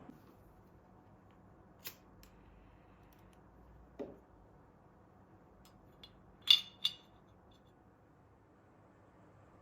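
A few scattered light clicks and a dull knock over quiet room tone, then two sharp clicks close together, about six and a half seconds in, with a brief ringing tail. These two are the loudest sounds.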